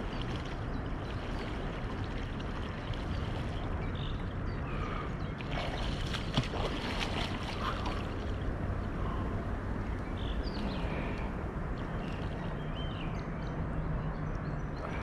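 Steady outdoor water and wind noise with soft splashing from a person swimming, a little louder about six to seven seconds in, and a few faint high chirps.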